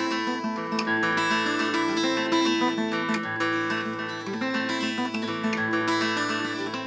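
Acoustic guitar playing chords, the notes ringing on, with the bass note changing about every second.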